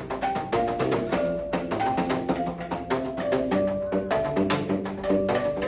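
A melody picked out on homemade pitched percussion made from recycled material: a quick, even run of struck notes with a hollow, wood-block-like attack.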